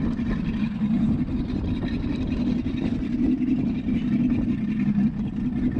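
Motorboat engine running steadily at low, near-idle speed, heard from aboard the boat as a steady low drone.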